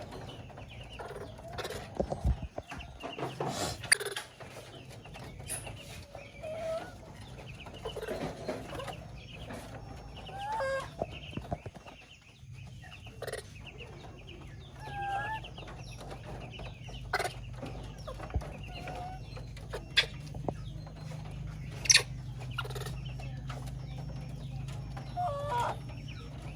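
Animal calls: short, scattered pitched calls, some gliding up or down, with occasional sharp clicks and a low steady hum beneath.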